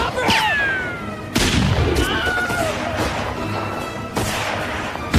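Orchestral film score over action sound effects: a sudden loud crash about a second and a half in, followed by several sharp bangs.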